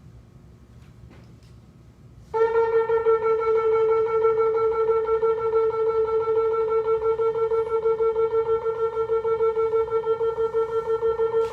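Shofar (ram's horn) blast: a long note held on one steady pitch, starting suddenly about two seconds in, with a slight waver in loudness.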